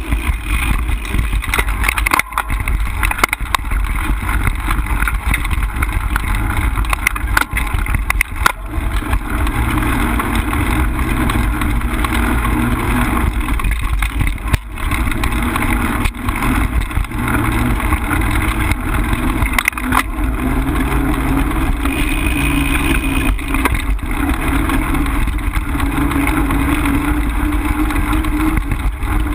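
Mountain bike rolling along a dirt singletrack, heard from a camera mounted on the bike: a steady rumble of wind on the microphone and tyre noise, with a few sharp knocks and rattles of the bike over bumps.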